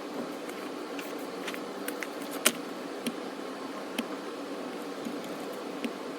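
A steady low mechanical hum, with a few scattered sharp clicks; the loudest comes about two and a half seconds in.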